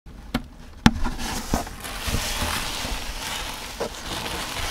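Cardboard box being handled and clear plastic packaging rustling and crinkling as it is pulled out. A few sharp knocks of cardboard come in the first second and a half, the loudest about a second in.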